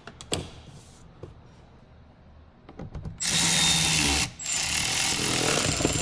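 A couple of sharp clicks near the start, then a power tool motor runs twice: about a second, a short break, then about a second and a half.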